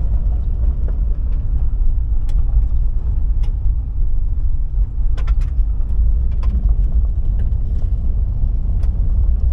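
Car driving along a road: a steady low rumble of engine and road noise, with a few scattered sharp ticks.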